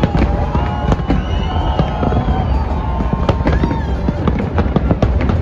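Fireworks display going off: a rapid, dense run of bangs and crackles over a continuous low rumble.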